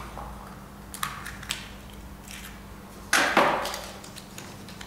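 A folded paper slip being unfolded by hand: a few faint crinkles, then a short, louder rustle about three seconds in.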